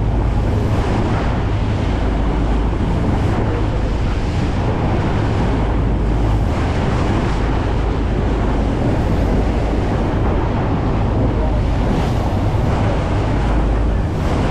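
Steady wind buffeting the microphone over the low drone of a fishing boat's engine and water rushing past the hull as the boat runs under way.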